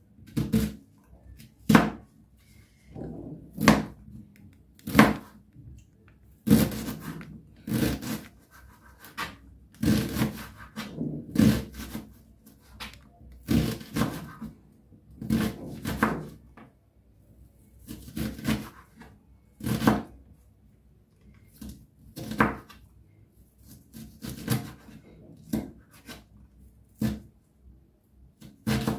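Kitchen knife chopping a red onion on a plastic cutting board: uneven knocks of the blade against the board, about one or two a second, with short pauses between strokes.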